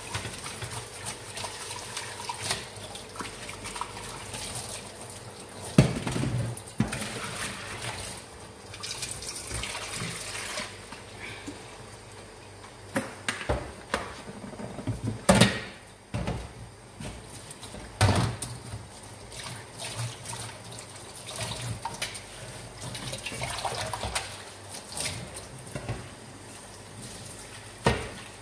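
Tap water running into a stainless steel sink while dishes are washed by hand, with several sharp clatters of plates and metal bowls knocking against each other and the sink.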